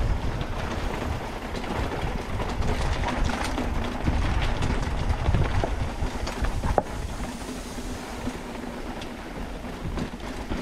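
Bicycle rolling over a rough trail: the bike rattles and clicks over a low rumble, a little quieter in the last few seconds.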